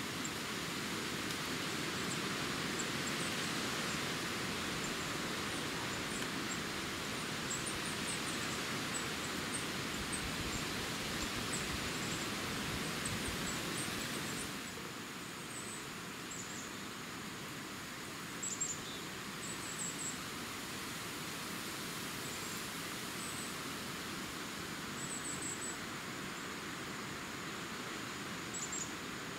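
Steady outdoor hiss of weather noise, with faint, high, short bird chirps scattered throughout. The hiss drops a little about halfway through.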